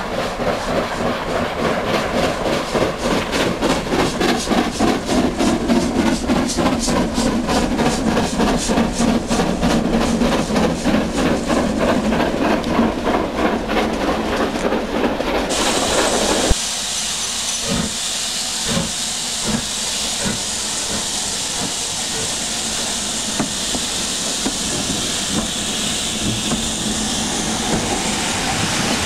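Steam locomotives LMS 4F 44422 and 3F 47324 double-heading under steam, their chimney exhaust beating in a quick, even rhythm. After a cut about sixteen seconds in, a steady hiss of escaping steam from a standing steam locomotive.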